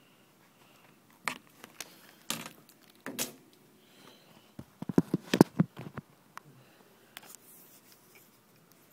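Handling noise from the recording phone or camera: irregular knocks, taps and rubbing against the microphone, with a cluster of louder thumps about five seconds in.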